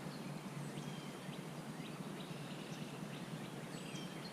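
Wild birds giving scattered short, high chirps and calls, some held briefly on one pitch, over a steady low background rumble.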